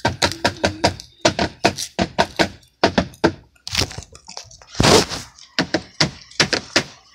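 A clear plastic container of coloured art sand shaken hard by hand: a fast, irregular run of knocks and rattles, about five a second, with one louder rushing jolt about five seconds in.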